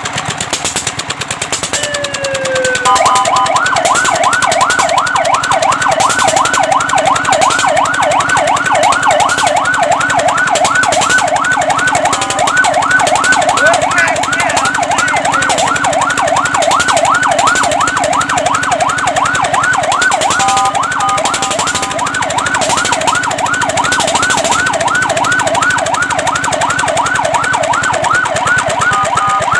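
Fire truck siren: a falling tone in the first few seconds, then a fast yelp sweeping up and down several times a second, broken three times by short steady tones.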